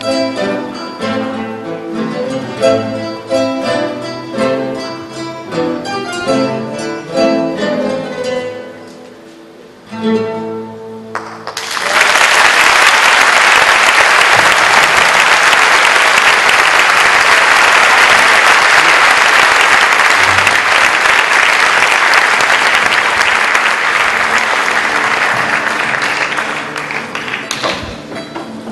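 Ensemble of classical guitars playing the closing bars of a piece, thinning out and ending on a short final chord about ten seconds in. Audience applause then starts, stays loud and steady for about fifteen seconds, and tapers off near the end.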